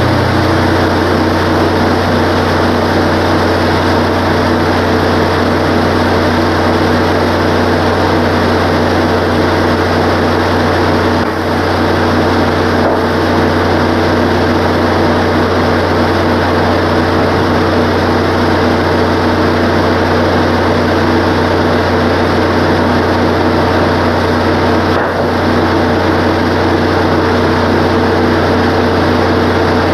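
Wood-Mizer LT15 sawmill's gasoline engine running at a steady pitch, with no change in load; a low part of the sound drops away about a second in.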